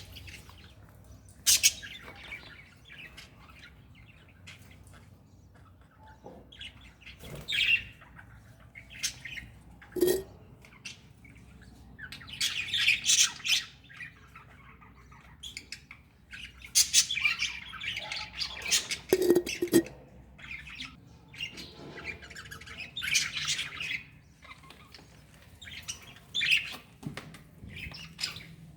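Budgerigars chirping and squawking in short irregular bursts, with louder clusters of chatter and a few harsher squawks.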